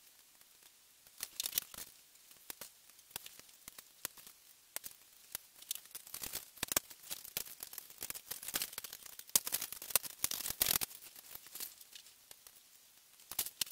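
Small plastic model-kit parts for a hydraulic hand being handled and fitted together: irregular sharp clicks and crackly rustling, busiest a little past the middle.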